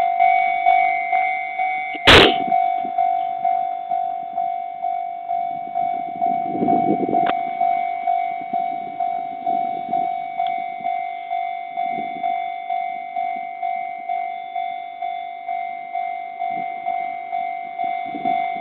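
Japanese railway level-crossing warning bell ringing steadily, one ding about every two-thirds of a second, as it does while the barriers are down for trains. A single sharp knock about two seconds in.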